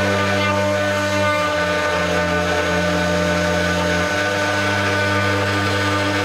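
6090 CNC router carving wood with a V-bit: the spindle runs steadily under the machine's drive hum. The low hum shifts in pitch about a second in and drops away about four seconds in as the head changes its moves.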